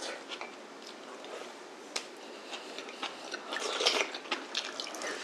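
Soft mealtime sounds: metal spoons clicking and scraping against ceramic and wooden bowls, with quiet chewing and one sharper clink about two seconds in.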